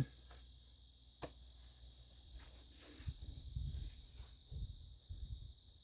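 Faint, steady high-pitched insect drone, like crickets, with a click about a second in and a few soft low knocks and handling sounds later on.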